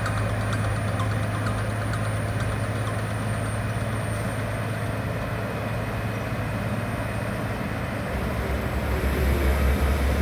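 Heavy diesel construction machinery running steadily with a low engine hum; near the end a deeper hum comes in and the sound gets louder.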